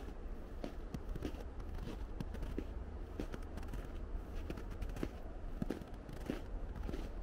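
Footsteps crunching in packed snow at a steady walking pace, about one step every 0.6 seconds, over a steady low rumble.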